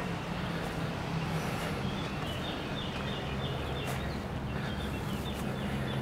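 Steady low hum of a motor vehicle's engine running nearby, with a bird chirping in short repeated notes for a few seconds in the middle.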